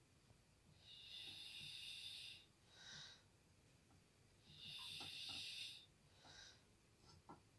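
Faint, slow, raspy breathing like light snoring: two long hissing breaths of about a second and a half, each followed by a short one, at roughly four-second intervals.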